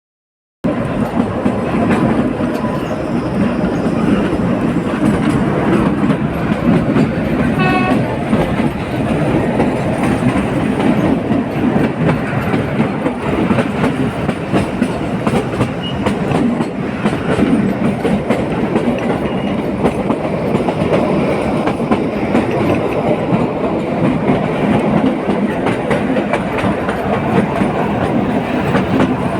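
Train running on its rails with a continuous rumble and rattle of wheels over the track. A brief pitched sound comes about eight seconds in.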